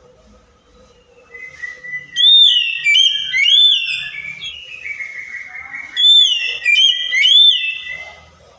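Oriental magpie-robin (kacer) singing: loud whistled phrases of rising and falling sweeps that begin about two seconds in, ease off briefly, then come back strongly near the six-second mark before fading.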